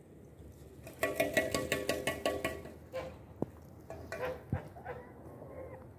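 A farmyard bird gives a rapid, buzzy call lasting about a second and a half, starting about a second in. A few short softer calls and single soft knocks follow.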